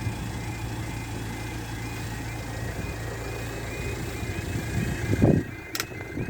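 Level crossing warning alarm sounding a short, repeating high chirp about three times a second, over the steady low rumble of idling road vehicles. A louder low surge comes about five seconds in, followed by a sharp click.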